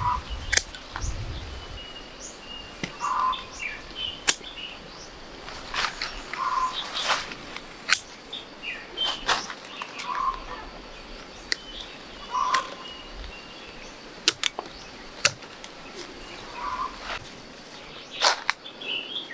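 Sharp knocks or cracks at irregular intervals, while a bird calls in short chirps every couple of seconds.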